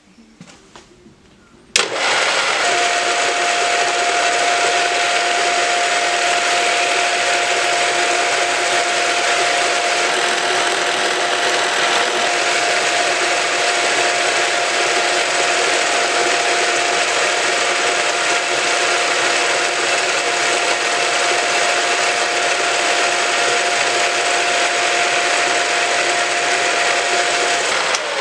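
Drill press switched on about two seconds in, then running steadily with a straight-fluted cutter boring into a hardwood block. A steady high whine sits in the noise and stops near the end, as the machine is switched off.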